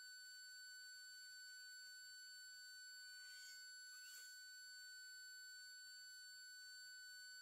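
Near silence with a faint, steady high-pitched electronic whine made of several pure tones, and a faint brief rustle about halfway through.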